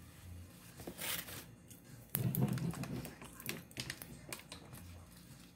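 Close-up eating sounds: chewing with wet clicks and smacks of the mouth. A louder, sudden, low thud comes about two seconds in.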